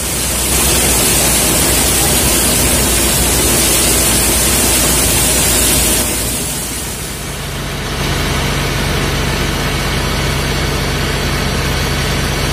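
Tractor-driven thresher running: a loud, even rushing hiss as grain and chaff shake through its sieve, then from about eight seconds the steady hum of the John Deere 5050E tractor's diesel engine driving it.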